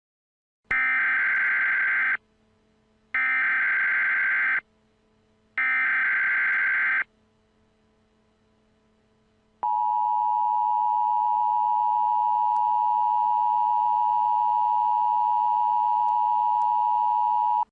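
Emergency Alert System SAME header: three identical bursts of warbling digital data tones, each about a second and a half long and about a second apart, encoding a law enforcement warning. They are followed by the two-tone EAS attention signal, a steady dissonant pair of tones held for about eight seconds.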